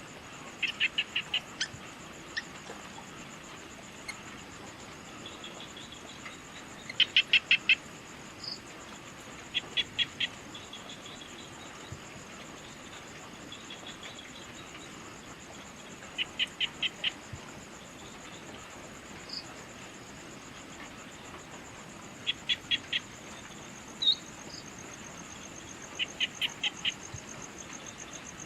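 Early-evening insect chorus: a steady, high, fast trill throughout. Over it, an animal call of four to six short, quick notes repeats about every three to six seconds, with a few single bird chirps in between.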